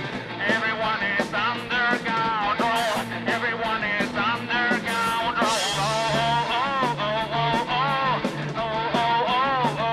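Rock music: an instrumental passage of a psychedelic rock song, with a lead line bending and wavering in pitch over steady bass and regular drum hits.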